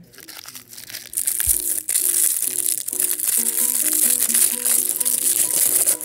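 Crinkly wrapper of an L.O.L. Surprise blind bag crackling loudly as it is pulled open by hand, starting about a second in. Background music with a repeating run of notes plays underneath.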